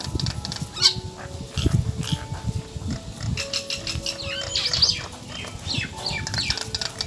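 A palm squirrel chewing and crunching on a dry block of instant noodles, with uneven munching sounds. Small birds chirp in the background.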